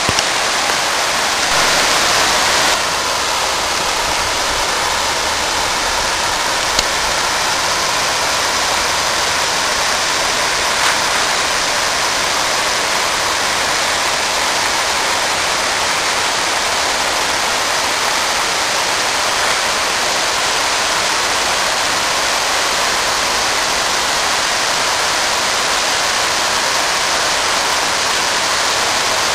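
Steady rush of flowing water, briefly a little louder about two seconds in.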